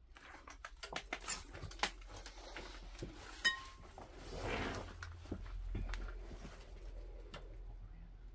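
Footsteps and handling noise in a cluttered room: a run of small clicks, knocks and rustles, with one sharper click about three and a half seconds in.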